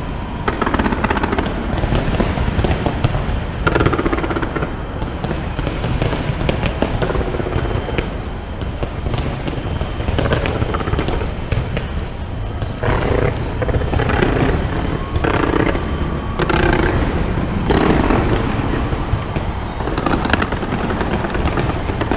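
Large fireworks display going off without pause: a dense run of bangs and crackles over a steady low rumble.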